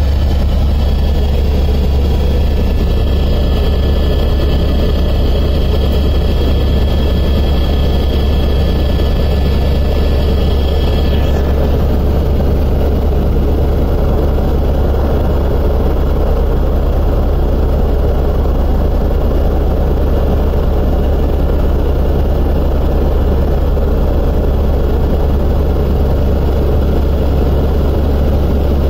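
Helicopter in cruising flight heard from inside the cabin: a loud, steady turbine-and-rotor drone with a deep hum underneath. A thin high whine in it drops away about eleven seconds in.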